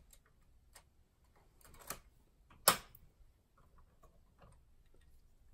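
Plastic LEGO parts clicking and knocking as the built model is handled, a handful of short, sharp clicks with one much louder than the rest about halfway through.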